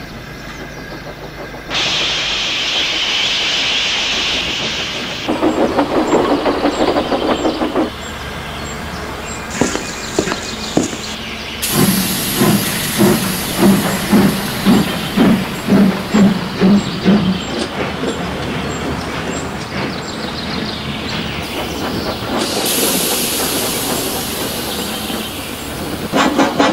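Dubbed-on steam locomotive sound effects: a stretch of loud steam hiss, then the exhaust chuffing in a steady beat of about two chuffs a second, more hissing, and a faster run of chuffs starting near the end.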